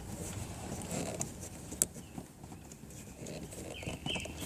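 Light handling sounds of a cut PVC pipe piece being pushed into a Ford air-conditioning line coupling in place of the release tool: faint rubbing, with one sharp click a little under two seconds in.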